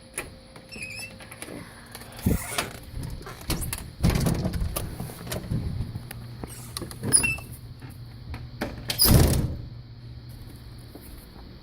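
Handling and movement noises from someone getting ready to go out: scattered knocks and rustling, with louder scraping noises about four seconds and nine seconds in.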